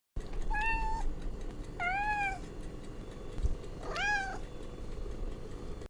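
Cat meowing three times, short arching calls about a second and a half apart, over a steady background hiss.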